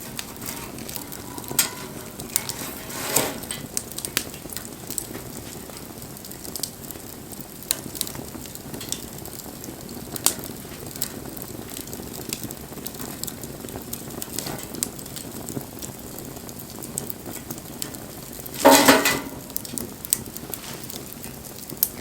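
Wood campfire burning: a steady hiss with frequent sharp crackles and pops from the burning wood, and one louder burst of rustling noise, under a second long, near the end.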